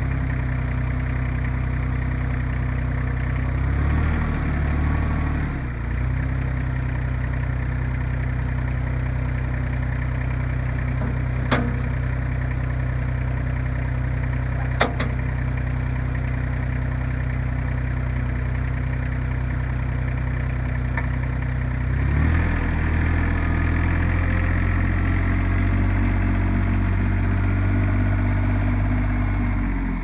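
RK25 compact tractor's diesel engine idling steadily, with two sharp clicks in the middle. About 22 seconds in the engine note rises a little as the tractor moves off.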